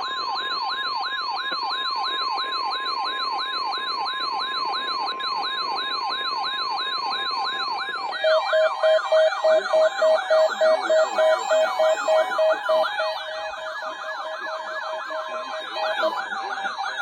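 Weather alert radios sounding their alarms for a NOAA Weather Radio weekly test: a loud siren-like warble sweeping up and down about three times a second over a steady tone near 1 kHz. About eight seconds in a second, lower pulsing beep joins and dies away several seconds later.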